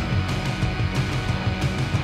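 Background music with a steady, driving beat.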